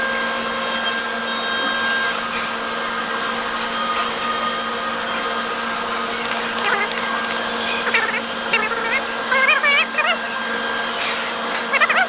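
Haas VF-4 CNC vertical mill running: a steady whir with several steady high whining tones over a low hum. In the second half short, high, wavering chirps come in clusters.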